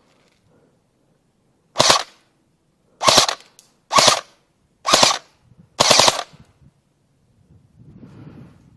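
Airsoft gun firing five short full-auto bursts, about one a second, each a rapid string of shots.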